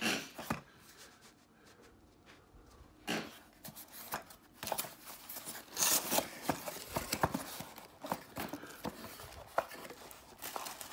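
A corrugated cardboard mailer box being handled and its flaps pried open by hand: scattered sharp clicks, scrapes and rustles of cardboard, busiest in the second half.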